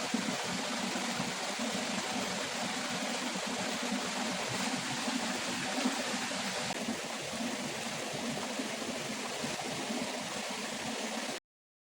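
Steady rush of flowing water, cutting off abruptly near the end.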